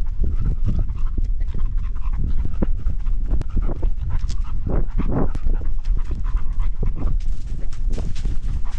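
Labrador retriever panting hard while on the move, heard close up from a camera strapped to its harness, with a constant low rumble and scattered rustling clicks.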